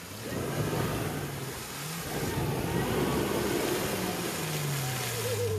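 Mahindra Thar 4x4's engine revving hard in the mud under a steady rushing noise, climbing about two seconds in and easing off near the end, as the SUV bogs down and gets stuck.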